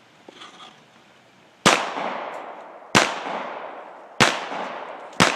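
Four handgun shots fired about a second and a quarter apart, each ringing out in a long fading echo.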